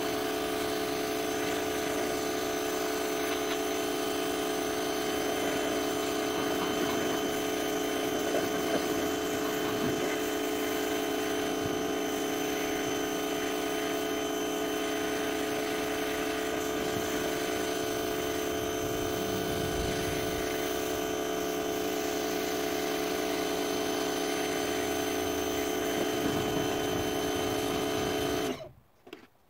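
Pressure washer running steadily, a constant mechanical hum under the hiss of the high-pressure water spray hitting the wooden fence boards; it cuts off abruptly near the end.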